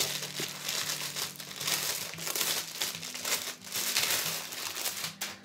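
Clear plastic wrapping crinkling as a packaged camera sensor cleaning kit is handled, with irregular rustling bursts that die away shortly before the end.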